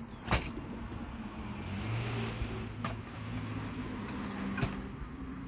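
A motor vehicle passing on a nearby street: a low engine hum and road noise swell for a couple of seconds and then fade. Three sharp clicks or knocks stand out above it, the first being the loudest.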